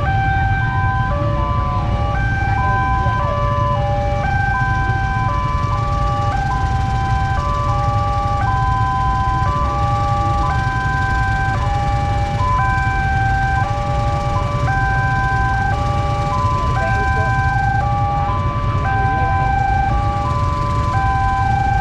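Railway level-crossing alarm sounding its repeating electronic tune of stepped, held tones, each about half a second, over a low steady rumble of idling traffic.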